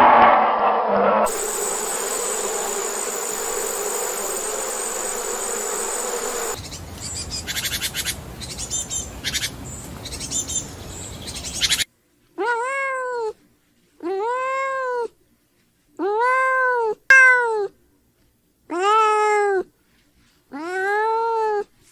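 A domestic cat meowing about six times in the second half, each meow about a second long, rising and then falling in pitch. Before that there is a steady hiss with a high whine, then scratchy noise.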